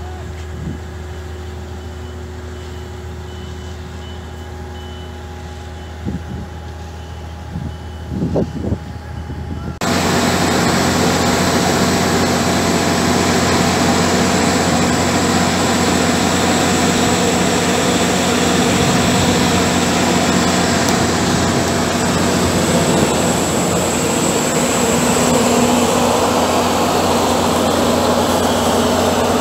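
A construction machine's diesel engine running steadily, with a reversing alarm beeping at even intervals. About a third of the way in there is an abrupt cut to the much louder steady noise of a cutter soil mixing (CSM) rig: its engine runs hard as the cutter head churns soil into grey slurry.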